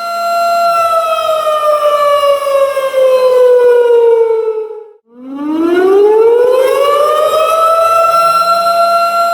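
Tornado warning siren (civil defense siren) wailing on a steady pitch, then winding down in pitch for about four seconds. It cuts out for a moment near the middle, then winds back up to the same pitch and holds it.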